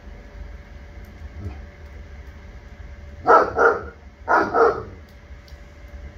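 A dog barking: two quick double barks about a second apart, over a steady low rumble.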